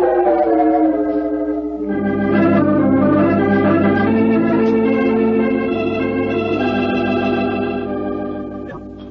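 Organ playing a musical bridge between scenes of a radio drama. A falling phrase leads into held chords, which change once and fade out near the end.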